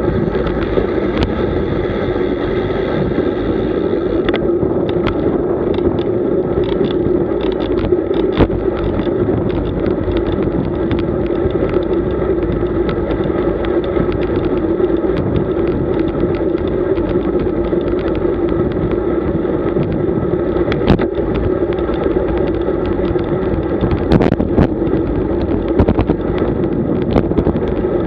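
Road bicycle riding along: a steady rush of wind on the microphone and tyre-on-road noise, with scattered small clicks and knocks.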